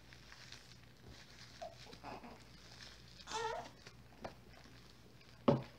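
A newborn baby gives a short, wavering whimper about halfway through, over soft rustling as a disposable diaper is fastened; a single sharp click comes near the end.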